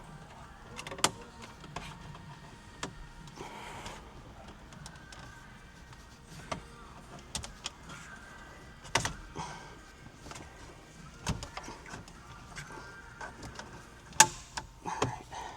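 Irregular plastic clicks, taps and knocks of dashboard trim pieces being pried and worked loose with plastic trim tools, with a few sharper snaps about a second in, around nine seconds in, and near the end.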